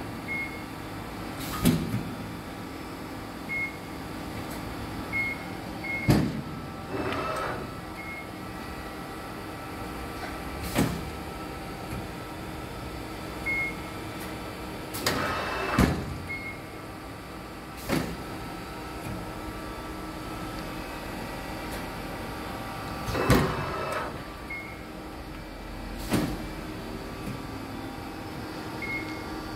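Amada RG-80 CNC hydraulic press brake running: a steady hum with a sharp clunk every few seconds, three whirring motor swells and short high beeps now and then.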